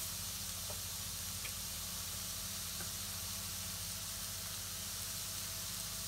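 Chopped vegetables frying in a non-stick pan: a steady, gentle sizzle, with a steady low hum underneath and a few faint ticks.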